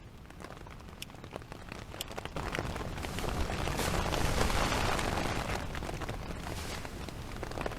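Rain falling on a tent, heard from inside: scattered drop taps at first, then the rain grows heavier about two and a half seconds in and eases only a little near the end.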